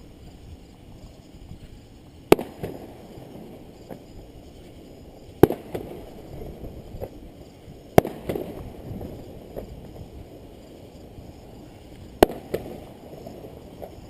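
Fireworks going off: four loud single bangs spaced a few seconds apart, each followed by a rumbling echo and a few smaller pops.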